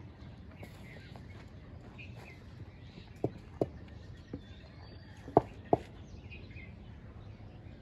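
Outdoor background noise with faint bird chirps, broken by a few sharp knocks in two close pairs, each pair about a third of a second apart, around three and five seconds in.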